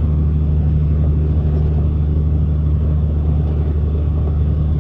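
Steady low drone of a semi-truck's engine and road noise heard inside the cab while cruising at highway speed.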